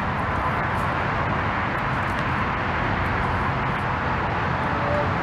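Steady background noise of road traffic at an even level, with no distinct event standing out.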